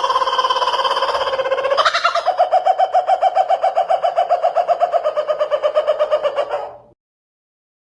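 A strange bird-like call. It starts as a steady held tone for about two seconds, then breaks into a fast even trill of about nine pulses a second, and cuts off near the end.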